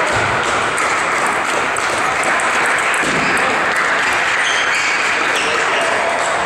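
Table tennis balls striking bats and tables in a tournament hall, over a steady wash of hall noise from other tables and onlookers.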